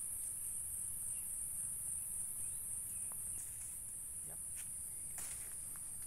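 A steady, high-pitched insect chorus, with a few soft rustles and crackles of dry pine needles and leaf litter in the second half.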